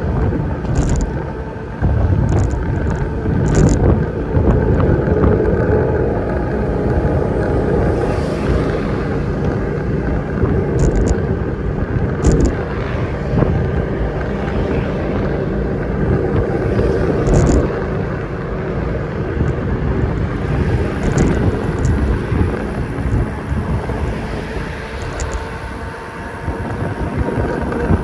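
A vehicle running steadily along a road while being ridden, with wind buffeting the microphone and a few short ticks.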